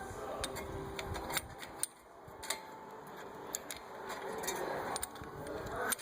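Irregular sharp metallic clicks and light clatter of a brake caliper piston tool being fitted and worked against a rear disc brake caliper piston.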